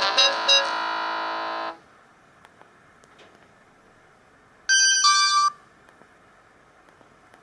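Polyphonic Siemens Xelibri ringtone playing from a Samsung GT-E2121B phone's speaker, a quick electronic melody that cuts off abruptly about 1.7 seconds in. After a pause, a short burst of stepped electronic tones, under a second long, sounds from the phone about two-thirds of the way through.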